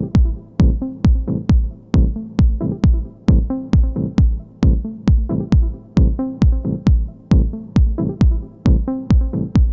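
Mid-1990s trance music: a steady four-on-the-floor electronic kick drum at about 134 beats per minute, each thump falling in pitch, under sustained synth tones.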